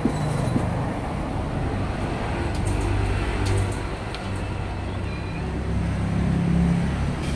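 Domestic cat purring close to the microphone while being petted: a low, steady rumble that swells louder near the end.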